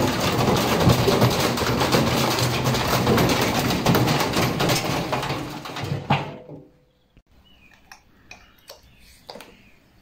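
Indesit washing machine spinning with a heavy brick loose in its drum: a violent, continuous banging and rattling of the brick against the drum and the battered cabinet. About six seconds in there is a last loud bang as the machine tips over, and the racket stops suddenly.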